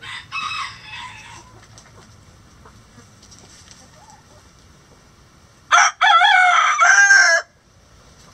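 A short chicken call right at the start, then about six seconds in a rooster crows once, a loud call of under two seconds.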